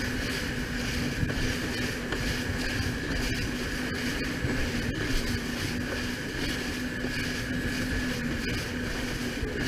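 Jet ski engine running at a steady cruising speed, a constant droning tone, with water spray and wind rushing past.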